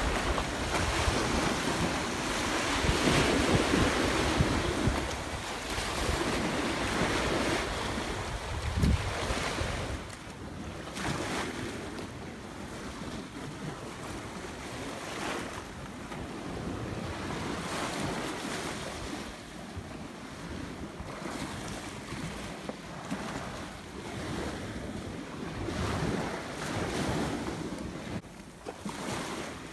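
Rough, wind-driven waves surging against a shoreline and pier pilings, with wind buffeting the microphone. About ten seconds in the sound drops to a quieter wash of smaller waves on a rocky shore, still with wind.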